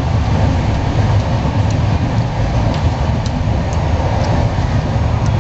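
Steady low rumble and running noise of a moving express train, heard from inside its passenger coach.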